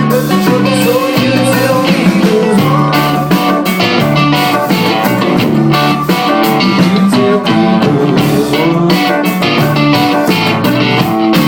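Live band music: a guitar-led folk-blues instrumental passage with a steady rhythm.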